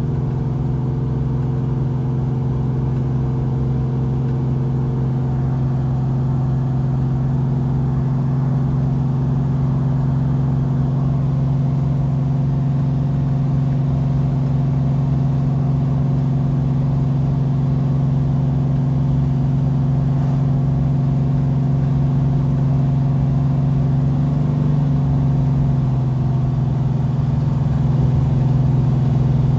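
Classic Dodge Charger's engine running steadily as the car cruises down the road, heard from inside the cabin. The engine note wavers briefly about 25 seconds in and gets a little louder near the end.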